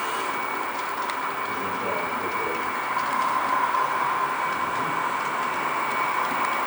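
Model trains running on a layout: a steady whirring hum with a few faint clicks.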